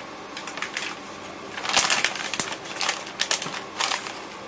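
A soap mold liner crinkling and rustling as it is peeled off a loaf of cold process soap and pulled aside. Irregular crackles, loudest about two seconds in and again near the end.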